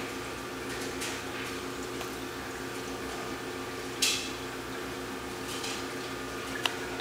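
Steady hum of a laundry machine running, with a few short hissing swishes, the loudest about four seconds in, and a brief click near the end.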